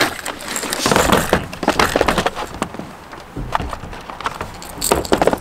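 Hard plastic tackle trays and lures clattering and clicking as they are rummaged through and lifted out of a boat's storage compartment. It comes as an uneven run of small knocks and rattles, densest about a second in and again near the end.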